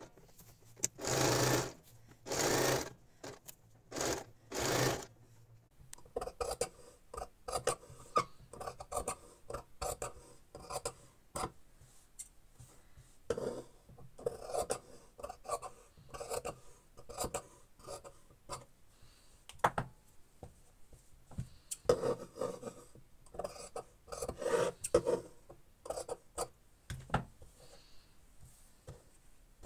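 A sewing machine stitches in four short bursts. Then scissors snip through fabric strips, with cloth rustling and sliding on the table, in many short crisp cuts.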